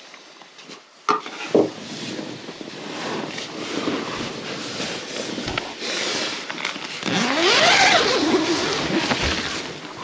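Nylon tent fabric rustling and crinkling while a tent door zipper is drawn, as someone climbs out of the tent. Two sharp knocks come a little over a second in, and the loudest rasp, near the end, sweeps up and then down in pitch.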